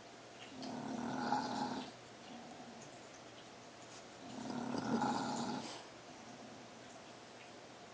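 English bulldog snoring in its sleep: two loud snores of about a second and a half each, roughly three and a half seconds apart, with a softer breath between them.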